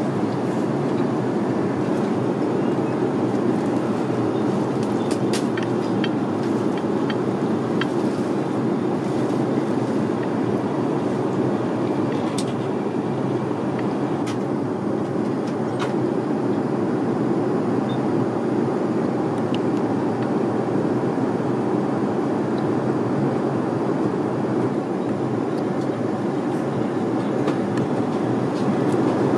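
Steady roar of an airliner cabin in flight, an even rumbling hiss with no change in level. A few faint clicks of cutlery or crockery stand out here and there.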